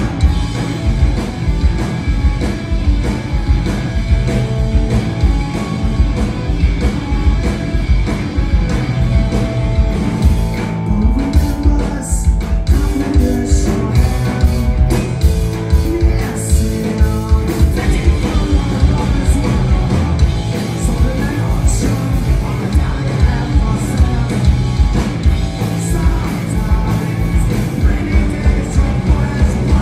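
Live punk rock band playing at full volume: distorted electric guitars, bass, drums and sung vocals. About a third of the way in the cymbals drop back for several seconds and held guitar notes stand out, then the full band comes back in.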